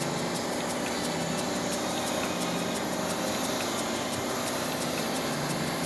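Suction-feed compressed-air spray gun spraying paint: a steady hiss of air and atomised paint, with a motor running steadily underneath.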